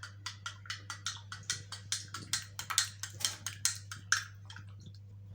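A spoon stirring a drink in a cup, clinking against the sides with quick, even strokes, about five a second.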